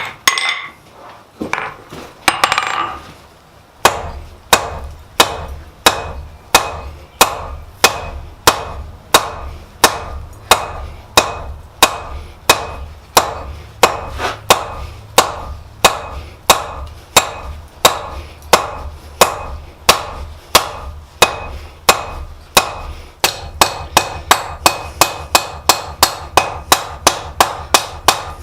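Hammer blows on an anvil, forging a length of spring steel cut from a coil spring, with a light ring after each strike. After a few scattered knocks the blows fall steadily about one and a half a second, then quicken to about three a second near the end.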